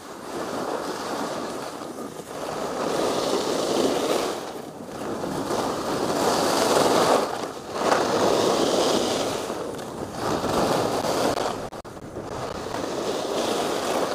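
Skis hissing and scraping over soft groomed snow, swelling and fading every two to three seconds with each turn, mixed with wind rushing over the helmet camera's microphone.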